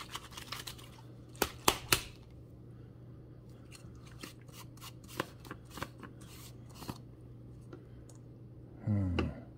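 Hard plastic clicks and knocks from a personal blender's plastic cup being handled and its blade head unscrewed. Three sharp clicks about one and a half to two seconds in are the loudest, with lighter clicks scattered after.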